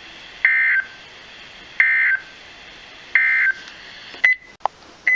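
Three short, equal bursts of EAS/SAME digital data tones from a NOAA Weather Radio broadcast, about 1.4 s apart. They are the End of Message code that closes the tornado warning just read. Near the end come a couple of short clicks and a brief chirp.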